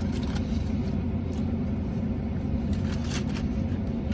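Steady low rumble of a vehicle idling, heard from inside the cab, with a few faint soft rustles about a second in and again near the end.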